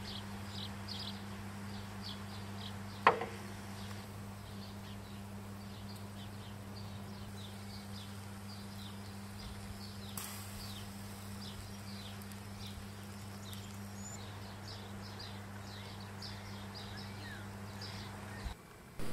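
Faint outdoor ambience: short high chirps repeating over a low steady hum, with one sharp click about three seconds in.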